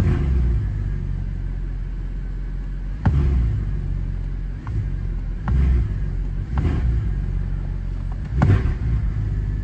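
Mercedes C63 AMG's hand-built 6.2-litre V8 (badged 6.3) idling with a steady low rumble, given several short throttle blips: at the start and about three, five and a half, six and a half and eight and a half seconds in. Heard from inside the cabin.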